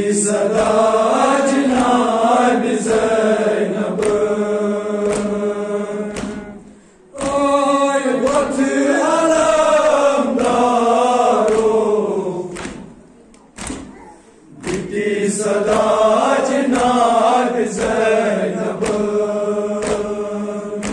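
A group of voices chanting a Kashmiri noha, a Muharram lament, in unison. The melodic phrases are long and held, with short breaks about 7 and 13 seconds in.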